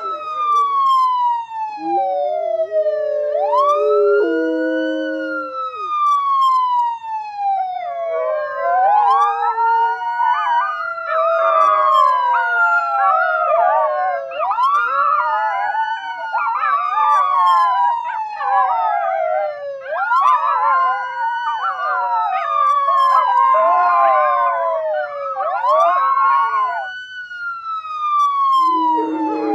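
An emergency-vehicle siren on a slow wail, each cycle rising quickly and falling slowly over about five to six seconds. From about eight seconds in until shortly before the end, a chorus of dogs or wolves howls along with it, many wavering voices overlapping. They drop out near the end, leaving the siren alone.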